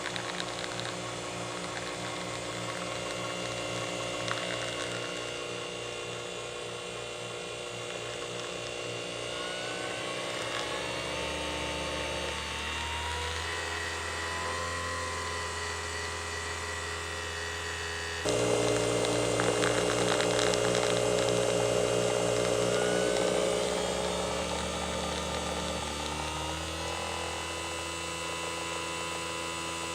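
Nespresso Vertuo coffee machine brewing: the steady hum and whine of its pump and capsule-spinning motor. The tones shift about ten seconds in, and the sound turns louder from about eighteen seconds.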